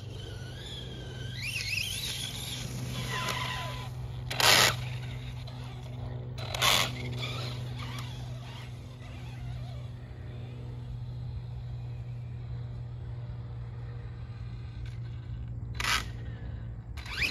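Brushless electric motor of a hobby-grade RC truck whining, its pitch rising and falling as it speeds up and slows in the first few seconds. Four short loud bursts of noise stand out, two near the middle and two near the end.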